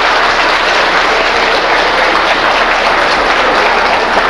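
Audience applauding: a loud, dense, even clatter of many hands clapping.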